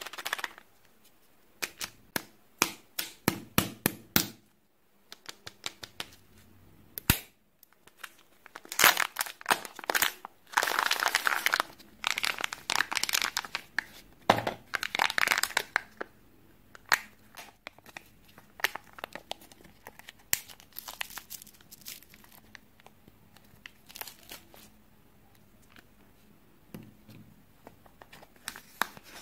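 Kinder Joy plastic eggs being opened by hand: the wrapping seal tearing, sharp clicks of the plastic halves, and the foil lids peeling off and crinkling. The sound comes in scattered bursts, with a long dense stretch of crinkling about a third of the way in.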